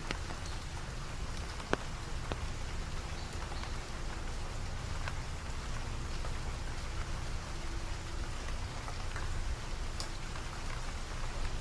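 Steady rain falling, with scattered ticks of individual drops landing and one sharper tap just under two seconds in.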